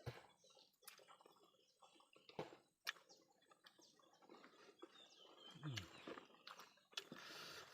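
Faint eating sounds: scattered wet clicks and smacks of chewing, with a brief low sound about six seconds in and a soft hiss near the end.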